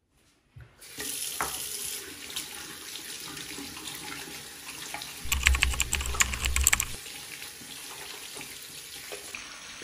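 Bathroom sink faucet running, a steady stream of water splashing into the basin. About halfway through, a short burst of sharp clicks and clatter with a low rumble rises over the running water.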